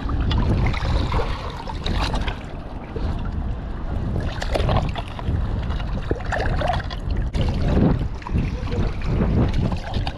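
Wind rumbling on the microphone, with irregular knocks of rocks being shifted and water splashing and sloshing as a rock is turned over in a rockpool.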